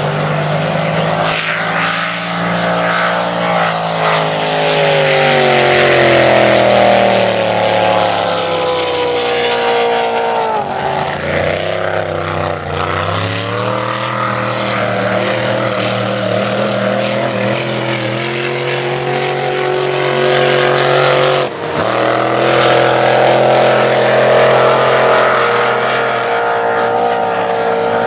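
Supercharged engine of an unlimited displacement-class race boat running hard at high revs, its pitch sagging and climbing back around ten to fourteen seconds in. The sound drops out for a split second a little past twenty seconds, then the engine runs on.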